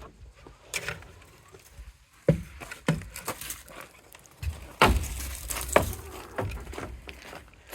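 Scattered knocks and thumps with low rumbling and rustling in between, like handling and stepping about.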